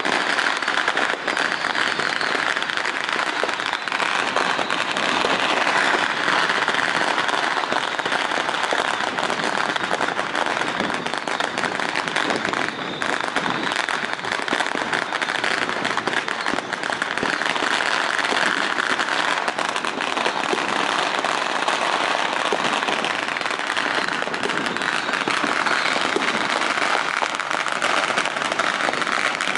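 Strings of firecrackers set off aboard fishing boats, crackling continuously without a break.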